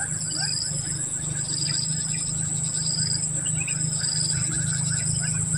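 Tropical insects calling: a steady high-pitched drone, with a short, higher chirp repeating about once a second. Under it runs a steady low hum.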